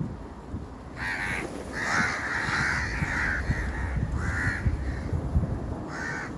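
A bird calling four times with harsh, noisy calls, the second one long, over a low steady rumble.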